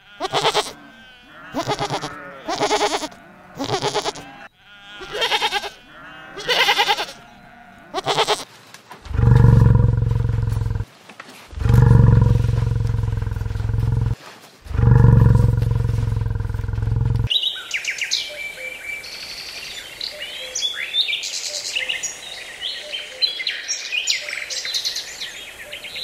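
A goat bleating again and again, about one call a second, for the first eight seconds or so. Then three long, deep bellows from bison, each about two seconds. These are the loudest sounds. From about two-thirds of the way in come high chirping calls.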